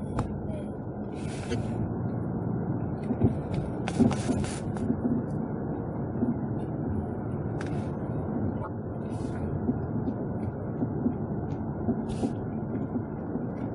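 2018 Jeep Compass running along with a steady road rumble, and intermittent clunks from the front suspension, a handful of knocks a few seconds apart: the sign of worn stabilizer (sway bar) links.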